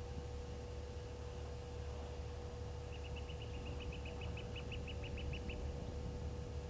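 A bird calling: a run of about twenty short, quick high notes that grow a little louder, over a steady low rumble and a faint steady hum.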